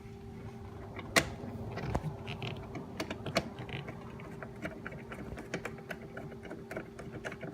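Small irregular clicks and taps of a hand tool working the Torx screws that hold down the plastic engine air box, with a sharper click about a second in, over a faint steady hum.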